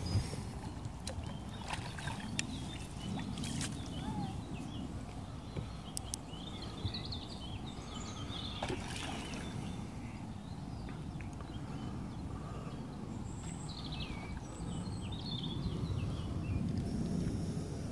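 Lakeside outdoor ambience: a steady low wind rumble on the microphone, birds chirping now and then, and a few sharp clicks.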